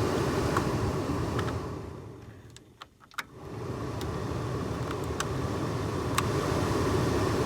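Newly installed heater blower motor of a 2003 Buick Century running, a steady rush of fan air. About two seconds in it winds down almost to silence; two clicks sound near the three-second mark, then it spins back up to a steady run, which shows the new motor working.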